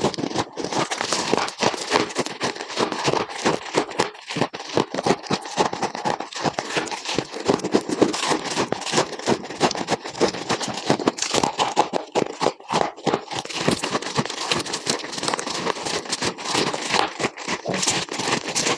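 A person biting and chewing ice, a dense, continuous run of crisp cracking crunches, sped up to double speed.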